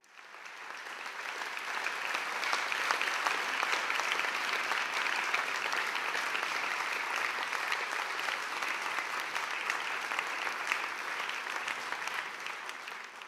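Large concert audience applauding: dense, steady clapping that swells over the first couple of seconds and fades out near the end.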